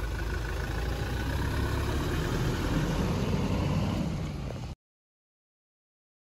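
Toyota Hilux pickup's diesel engine running at low revs as the truck rolls slowly over dirt, cutting off abruptly about three-quarters of the way in.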